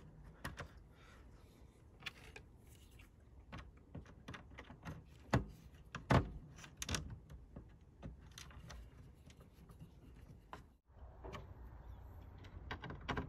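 Scattered small clicks and knocks of a plastic cooling fan being fitted back into a stove's housing and a screw driven through its bracket with a screwdriver, the loudest two knocks about five and six seconds in.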